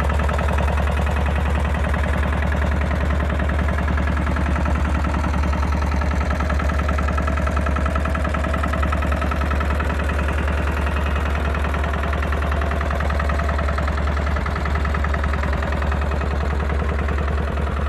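Small vintage tractor engine idling steadily, with an even, regular firing beat.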